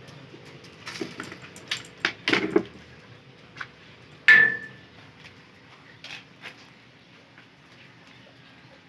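A few light knocks and clatters, then one louder sharp knock about four seconds in that rings briefly, and a couple of faint ticks after it.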